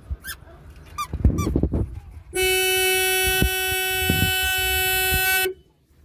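Suzuki car's horn sounding one steady, unbroken blast of about three seconds, starting a little over two seconds in and cutting off sharply. Before it come a couple of short high squeaks and some soft thumps.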